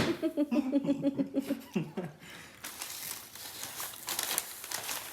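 A person's voice in a held, pulsing vocal sound at a steady pitch, like a strained laugh or groan, for the first second and a half, then crinkling and rustling through the rest.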